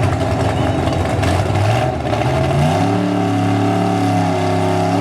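A 1964 Pontiac GTO drag car's nitrous-equipped V8 running hard. Its revs climb sharply about two and a half seconds in, then hold at a high, steady pitch.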